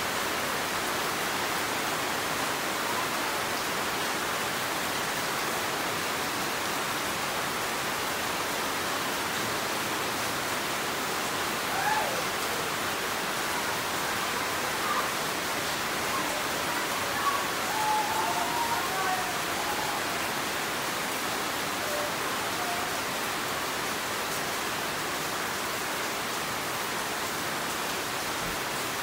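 Steady rain falling on banana leaves and surrounding foliage, an even hiss with no change in strength.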